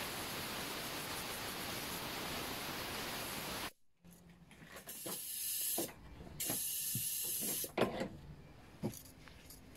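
Aerosol carb cleaner sprayed at small carburetor parts in a wire-mesh tea strainer: a steady hiss that stops abruptly, then two short hissing spray bursts, followed by a few sharp light metal clicks and rattles as the strainer and parts are handled.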